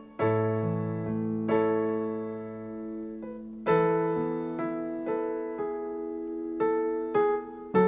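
Slow piano chords, struck about eight times and left to ring and fade between strikes, with no singing over them.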